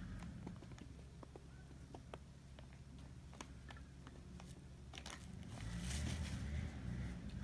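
Scattered light clicks and taps of a spoon against a steel tray as white powder is sprinkled over raw potato sticks, with a louder rustling scrape about five seconds in. A steady low hum runs underneath.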